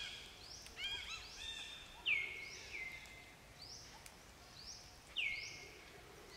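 Repeated short, high-pitched animal chirps and squeals, several with a sharp downward slide. The two loudest come about two seconds in and again about five seconds in.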